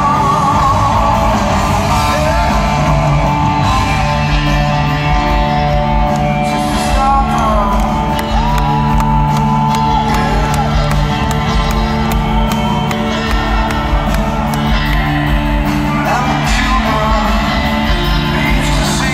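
Live hard rock band heard from the audience in a large hall: a male lead vocal sings long, wavering notes over electric guitar, bass and drums with crashing cymbals.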